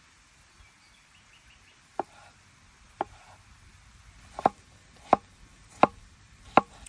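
Chef's knife cutting through tomatoes and striking a wooden cutting board: six sharp chops, about a second apart at first, then quicker in the second half.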